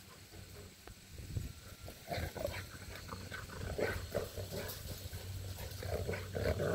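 Two dogs, a large black dog and a small black puppy, playing and chasing each other. There are short, irregular dog sounds from about two seconds in, and they come thicker near the end.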